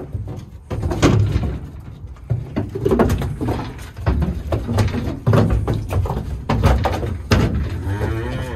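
Irregular knocks, bangs and clatter inside a cattle trailer as a load of young heifers shift about, their hooves and bodies striking the floor and sides.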